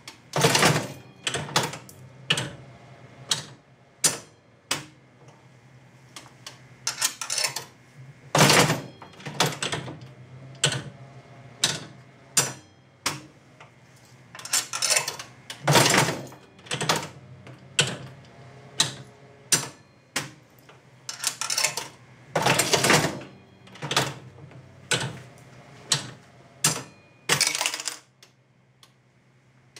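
An unrestored Jennings Sun Chief nickel slot machine being played several times over: each handle pull sets off a burst of mechanical clatter as the reels spin, followed by a run of sharp clicks and clunks as the mechanism stops and resets. A steady low hum runs underneath.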